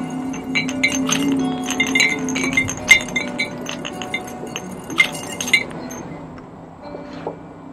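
Glass crystals being poured into a glass vase, clinking and tinkling in quick, irregular bursts that thin out about six seconds in, with guitar music underneath.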